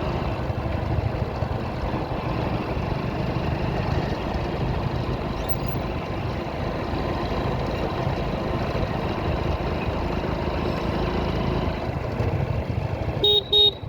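Steady engine and road noise of a vehicle riding through traffic. Near the end a horn sounds in quick short toots.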